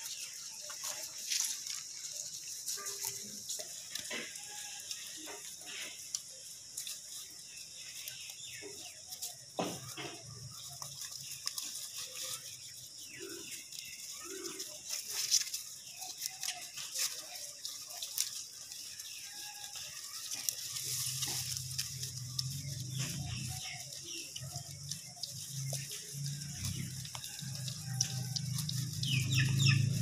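Goat kids tearing and chewing fresh grass stems, a running series of crunches and rustles, over a steady high-pitched hiss. A low rumble builds up about two-thirds of the way through.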